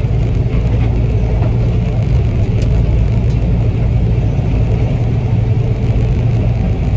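Combine harvester running steadily, a loud low drone.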